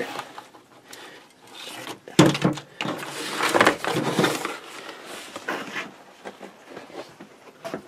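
Cardboard product box and cables being handled on a table: rustling and scraping of cardboard with knocks as the box flaps are pushed shut, loudest from about two to four and a half seconds in.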